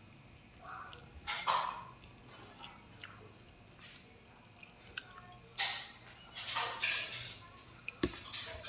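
Wet chewing and lip-smacking of someone eating chicken wings and rice by hand, in short bursts about a second and a half in and again from around five and a half seconds, with a single sharp tap near the end.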